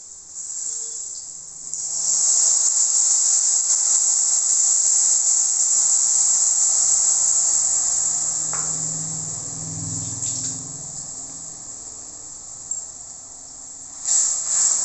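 Tamarind water poured into hot oil in an aluminium kadai, sizzling loudly. The sizzle starts about two seconds in and slowly dies down as the liquid settles toward a simmer. Near the end a ladle clinks against the pan.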